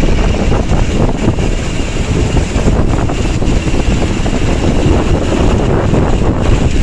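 Strong wind buffeting the microphone over the low, steady rumble of a bus's diesel engine.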